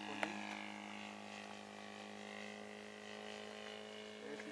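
Quarter-scale radio-controlled Ryan SC-W model airplane's engine running steadily in flight, heard faintly as an even hum whose higher tone slides slowly lower. There is a brief click just after the start.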